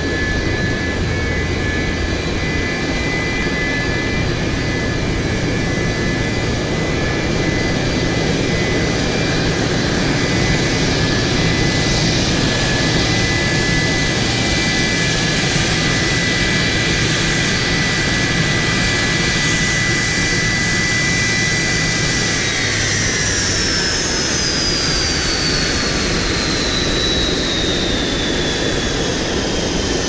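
Twin Pratt & Whitney JT8D-217A turbofans of a taxiing McDonnell Douglas MD-80-series airliner, a loud jet hiss and rumble with a steady high whine. About three quarters of the way through, the whine slides steadily down in pitch.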